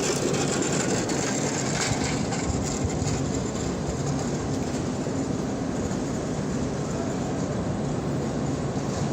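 EP2K electric locomotive hauling a passenger train, a steady rumble of the moving train with a few faint clicks in the first two seconds.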